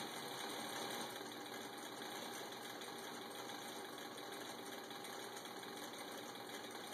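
Sewing machine motor running steadily while stitching leather.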